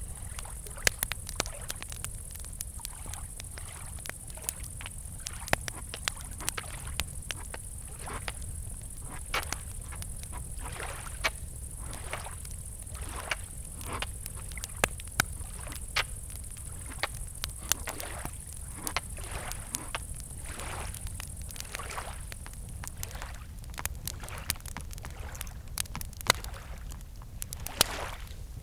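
Wood campfire crackling with irregular sharp pops, over a steady high chirring of crickets that stops a few seconds before the end and a low wash of gently lapping lake water.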